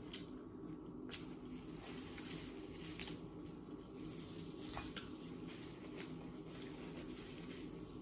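Crab legs being cracked and shelled by gloved hands, with a few sharp cracks of shell scattered through, along with chewing, over a steady low hum.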